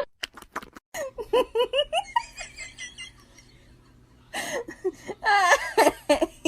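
A person laughing in short giggling bursts, getting louder near the end, after a few light clicks at the start.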